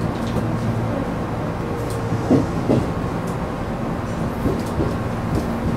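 Tobu Urban Park Line electric train running at speed, heard from the front of the train: a steady rumble with a faint hum, and a couple of short knocks about two and a half seconds in.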